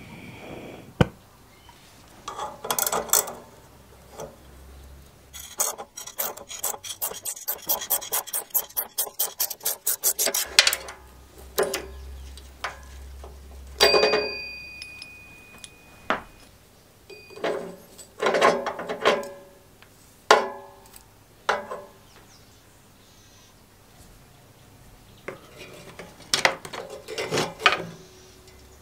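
Hand tools working a three-jaw gear puller off a rusted steel chain sprocket on a lawnmower shaft: a quick run of ratchet clicks for about five seconds, then scattered metal clinks, clanks and scraping as the puller and sprocket are handled, one clink ringing briefly.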